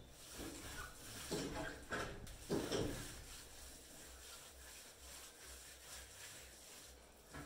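A hand smearing a wet cow-dung and soil mix across an earth floor: soft rubbing and scraping strokes, strongest in the first three seconds, then fainter.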